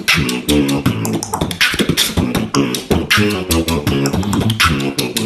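Beatboxing: a rhythmic stream of sharp mouth-percussion clicks and snares over low, pitched bass tones that step up and down.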